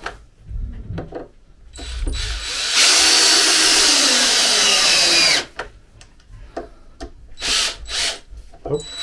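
Cordless drill-driver driving tallow-lubricated Phillips screws into oak through a brass hinge. There are short trigger bursts, then one run of a couple of seconds in the middle whose pitch falls as it stops, then several quick blips as the screws are snugged down flush.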